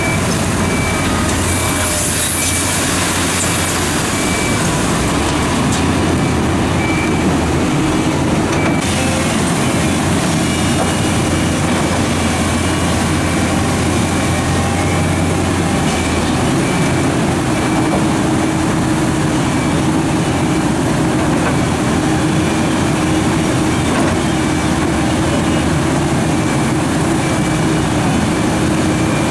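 New Holland E385 crawler excavator's diesel engine running steadily under working load while it digs, with a faint repeating high beep through much of it.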